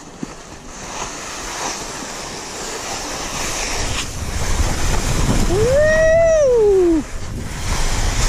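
Skis hissing and scraping over granular spring corn snow on a fast run, with wind noise on the microphone building from about halfway. Near the end a person lets out one long, high whoop that rises and then falls in pitch.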